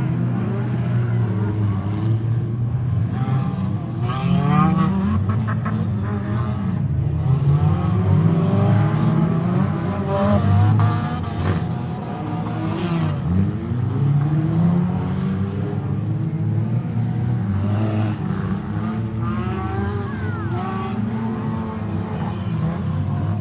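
Several stock-car engines racing at once around a dirt track, revving hard, their pitches rising and falling as the cars accelerate, lift and pass. A few short knocks come through among them.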